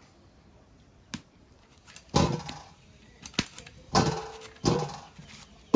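Three short animal calls, one about two seconds in and two more near the end, each loud and quickly dying away, with two sharp clicks in between.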